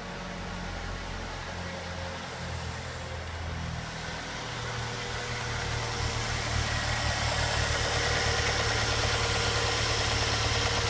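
Ford Fusion's 2.3-litre four-cylinder engine idling, getting louder and brighter about four to six seconds in, with a fast, light ticking ("toc toc toc"). The owner traces the tick to the intake manifold, not to engine knock.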